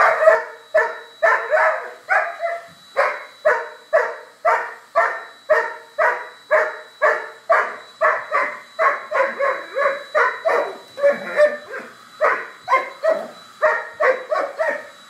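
Doberman barking over and over at a vacuum cleaner hose, a fast steady run of about two to three barks a second without a break.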